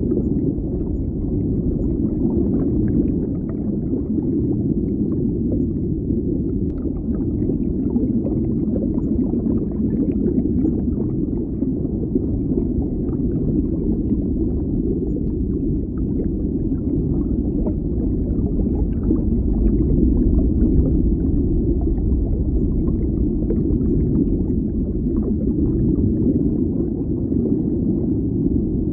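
Underwater bubbling water ambience: a steady, muffled low rumble with faint, scattered small bubble pops.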